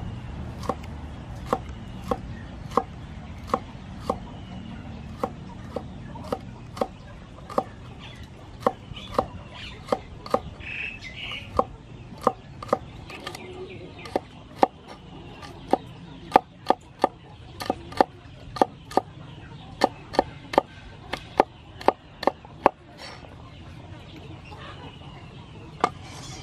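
Cleaver chopping long beans on a wooden cutting board: a steady run of sharp knocks, about one to two a second, quickening to about three a second in the second half and mostly stopping a few seconds before the end. A short bird call is heard near the middle.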